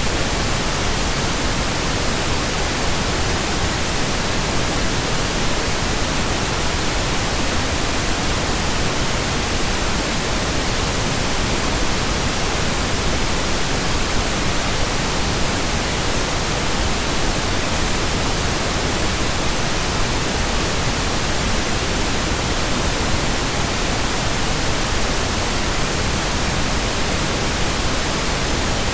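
Steady synthetic pink noise: an even, unbroken hiss with no tones, clicks or changes.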